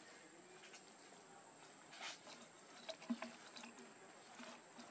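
Faint light taps and scuffs as a baby macaque paws at an empty plastic water bottle on the ground, a few soft clicks about two and three seconds in, over a thin steady high tone.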